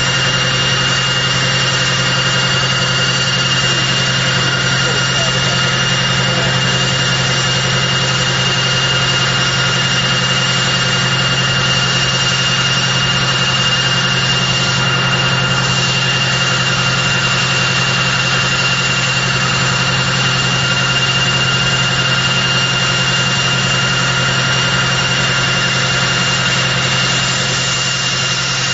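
Rolls-Royce Tyne turboprop engines of a Vickers Vanguard airliner running steadily on the ground. There is a high, steady turbine whine over a low drone, and it holds constant throughout.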